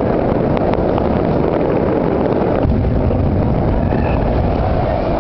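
Continuous low rumble of a large fireworks display, with a few faint crackling pops.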